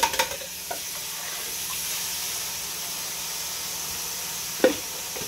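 Kitchen tap water running steadily into the sink, with a few clicks and knocks of plastic dishes being handled and set into the drying rack, the loudest knock near the end.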